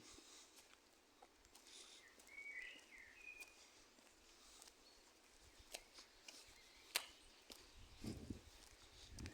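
Quiet outdoor ambience: a few short bird chirps about two to three seconds in, scattered light clicks with one sharper click about seven seconds in, and low rumbles near the end.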